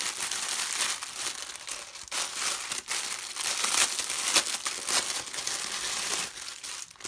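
Packaging crinkling and rustling as it is handled and opened, in irregular, uneven stretches of noise.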